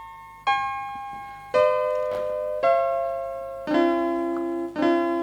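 Piano playing a slow introduction: five chords struck about a second apart, each left to ring and fade before the next.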